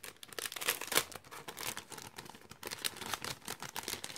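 Thin clear plastic bag crinkling in the hands as it is handled, in quick irregular crackles.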